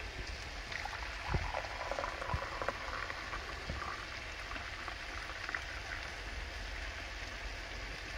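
Coffee poured from a French press into a cup, a steady trickle of liquid, with a couple of small knocks in the first few seconds.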